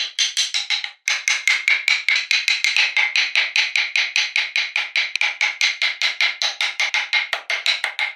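Rapid, evenly spaced sharp wooden taps, about six a second, with a brief break about a second in.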